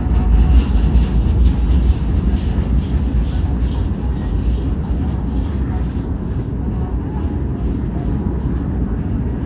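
Freight cars of a CSX mixed manifest train rolling past: a steady low rumble with faint clicking from the wheels.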